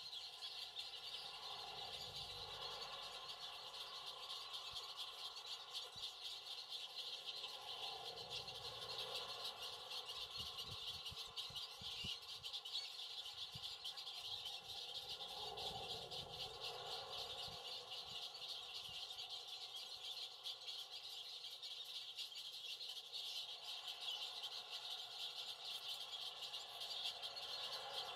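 Outdoor ambience: a dense, steady high-pitched chirping chorus of wildlife, with faint low rumbles now and then in the first half.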